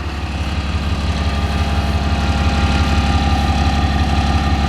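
2009 Dodge Ram 5500's 6.7-litre Cummins turbo-diesel idling steadily, growing louder over the first couple of seconds.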